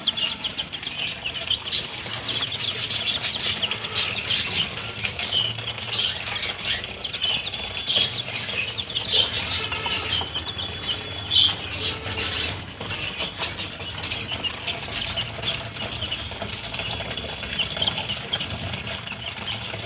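Domestic chicken chicks peeping, a busy run of short high cheeps, mixed with bursts of rustling and wing flutters.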